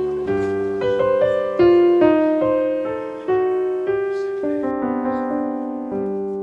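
Background piano music: a slow melody of single notes over held chords, each note struck and left to fade, ending on a chord that rings out.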